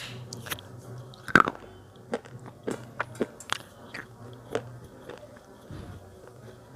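A Cat-brand slate pencil bitten close to the microphone: one loud sharp snap about a second and a half in, then short crisp crunches about every half second as it is chewed, thinning out near the end.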